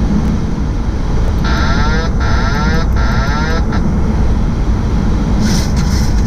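Steady, loud rushing noise on an airliner's flight deck during the approach: airflow and engine noise. About a second and a half in, a warbling electronic sound comes three times in quick succession.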